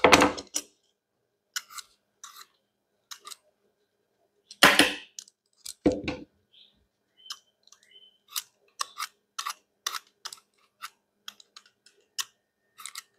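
Kitchen knife striking a cutting board in single strokes and knocks, with a few heavier thuds near the start and middle, then a run of lighter strokes about two a second.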